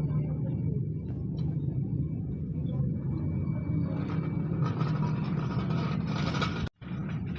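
A car driving, with a steady low rumble of road and running noise; a hiss builds up in the second half. The sound cuts out abruptly for a moment near the end.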